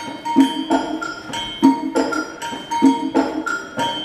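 Conga drum played by hand in a quick, even samba rhythm: sharp strikes with ringing open tones and regular heavier accents.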